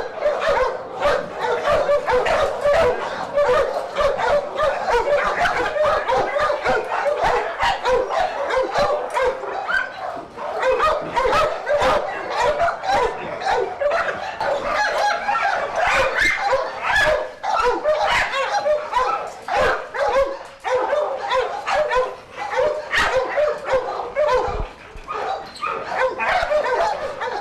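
Several kennelled American Pit Bull Terriers barking and yipping at once, a continuous overlapping chorus with no pause.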